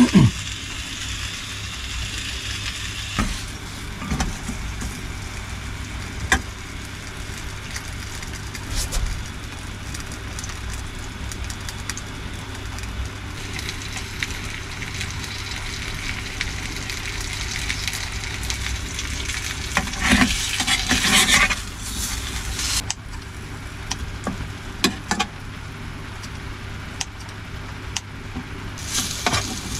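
Food cooking in a pot, sizzling as it is stirred, with occasional short clinks of the utensil over a steady low hum. A louder spell of stirring comes about twenty seconds in.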